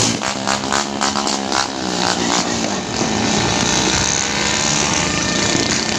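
A small engine running, its pitch shifting up and down over the first few seconds, with sharp firecracker crackles in the first two seconds.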